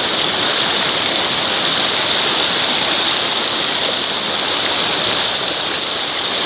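Fast, turbulent river water rushing steadily, an even, unbroken hiss of flowing current.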